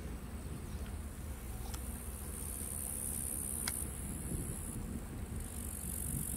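Crickets in the field singing a high-pitched, steady trill that starts and stops in stretches of a couple of seconds, over a constant low rumble.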